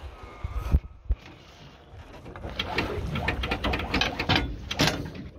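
Anchor winch hauling the anchor chain in over the bow roller, the chain clattering in a quick run of clicks through the second half as the anchor comes up onto the roller.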